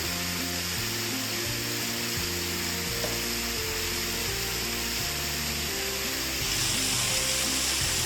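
Background music of slow, sustained notes that change every second or so, over a steady loud hiss. The hiss shifts slightly and grows a little louder about six and a half seconds in.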